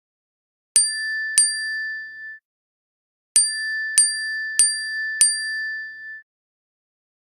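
iPhone notification tone: a bright bell-like chime struck twice in quick succession, then, after a short pause, four times at an even pace, each strike ringing out.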